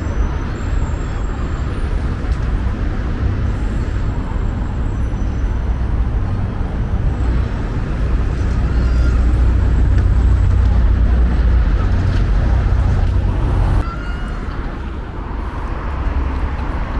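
Street traffic noise: vehicles running past, with a heavy low rumble that swells about halfway through and drops off suddenly near the end.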